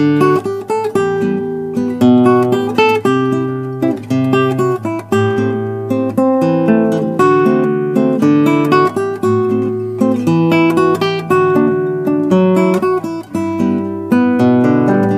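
Instrumental background music on guitar: a steady stream of plucked notes and chords, each note fading after it is struck.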